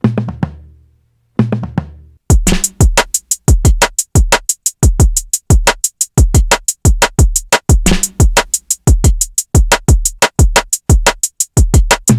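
Hip-hop drum-machine beat playing back. It opens with two lone hits, each with a deep decaying bass tone; about two seconds in, a steady fast pattern of deep kicks and crisp hi-hats starts and keeps going.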